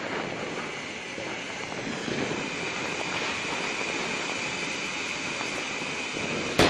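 Ground fountain firework (flower pot) spraying sparks with a steady rushing hiss, a higher-pitched hiss coming in about two seconds in. One sharp bang near the end.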